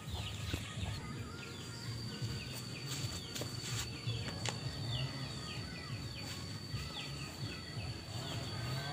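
Outdoor ambience: small birds chirping with many quick falling calls, and a steady high insect whine that starts about a second in, over a low uneven rumble.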